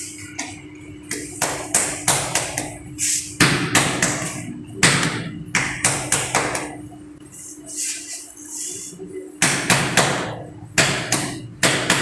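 A ceramic wall tile being tapped and patted by hand to bed it into fresh cement mortar on the wall: quick runs of sharp taps with short pauses between.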